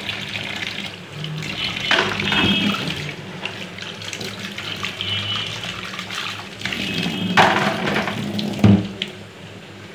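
Tap water running into a stainless steel sink while a soapy plastic cup is rinsed under the stream. A few knocks and splashes come as the cup is handled.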